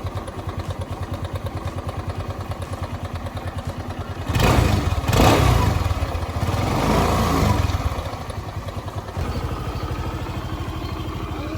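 Suzuki Access 125 scooter's single-cylinder engine idling with an even pulse, revved up two or three times about four seconds in, then settling back to idle, running with a newly fitted movable drive.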